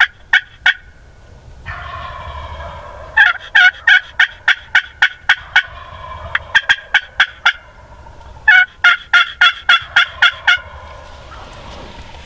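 Turkey calling: loud, sharp notes in rapid runs of about three to four a second, a short run at the start, a long one in the middle and another near the end.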